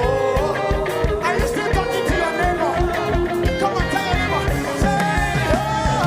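Live worship band music with a steady drum beat under a gliding melodic lead line.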